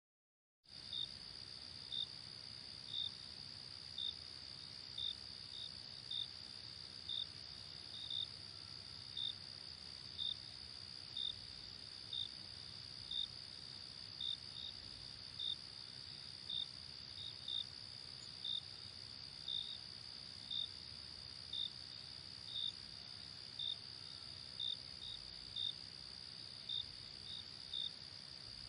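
Crickets chirping: one cricket's loud chirps repeat about once a second, evenly spaced, over a steady high-pitched insect trill.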